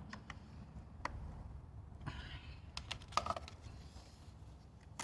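Scattered light clicks and taps of a part being handled and worked back into its place during a spark plug and ignition coil change, bunched around three seconds in.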